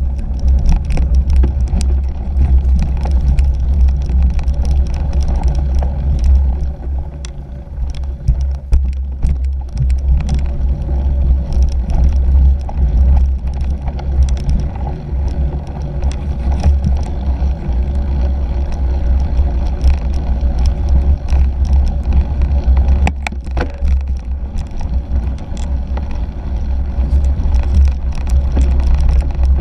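2017 Fuji Jari 1.5 cyclocross bike ridden over rough dirt and grass, heard through a bike-mounted GoPro Hero 3: a steady low rumble with many small rattles and clicks, and one sharper knock late on.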